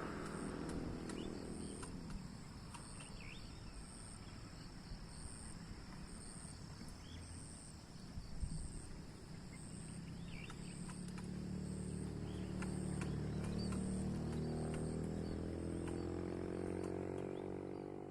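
Strong wind blowing across the microphone, with a low pitched motor-like hum that grows louder after about ten seconds. A faint high chirp repeats about twice a second.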